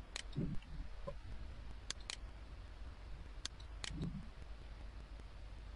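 Faint computer mouse clicks, about six in all and some in quick pairs, over a steady low hum.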